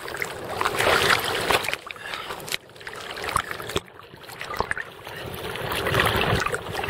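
Sea water splashing and sloshing around a surfboard as a surfer paddles out with arm strokes, the splashing swelling about every two to three seconds.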